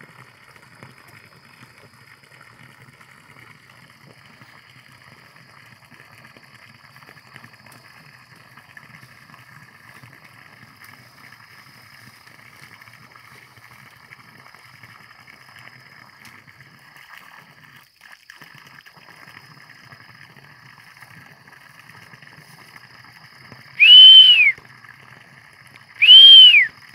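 Two loud whistles near the end, each under a second and about two seconds apart, each rising and then falling in pitch. Before them there is only a faint steady background with a thin high-pitched drone.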